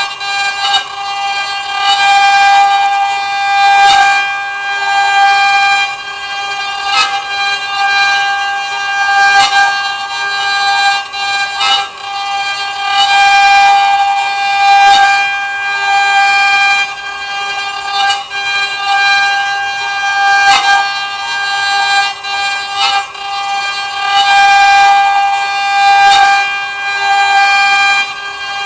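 CNC wood router spindle running while cutting wood: a steady high whine with overtones that swells and eases every second or two, with scattered sharp clicks.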